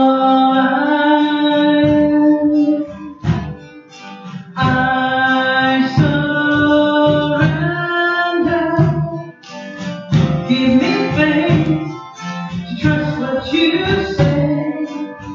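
Live singing over a strummed acoustic guitar: a lone voice holding long notes in a slow song.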